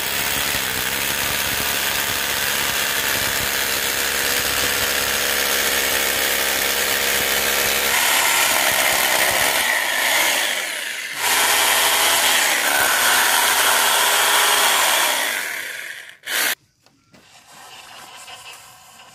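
Corded hammer drill with a masonry bit boring into a rendered masonry wall, running steadily in two long stretches with a short break about ten seconds in, then a brief burst. Near the end, fainter puffs of air as dust is blown out of the drilled hole through a tube.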